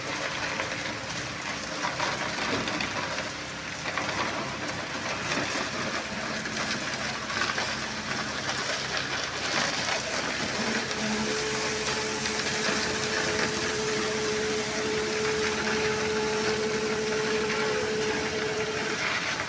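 Construction machinery running steadily at a concrete pour, with a steady hum that comes in about halfway through and holds almost to the end.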